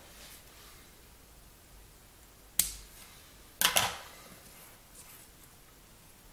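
Sharp clicks from handling a small plastic breadboard with wires and a chip on a desk: one click about two and a half seconds in, then a quick double click a second later.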